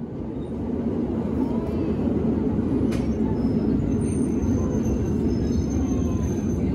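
Steady low rumble of a vehicle in motion. A faint thin high whine runs through the second half.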